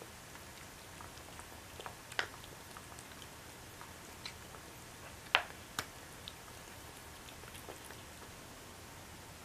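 Cat eating raw food and kibble off a platter: quiet chewing with scattered sharp crunches and clicks, the loudest pair about five and a half seconds in.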